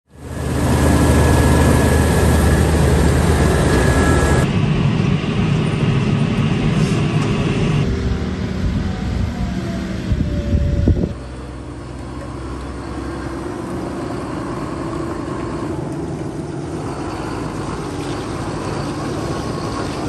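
Engines of heavy farm vehicles running, heard in a string of short clips that change abruptly several times. The engine sound is loudest in the first four seconds and drops suddenly about eleven seconds in.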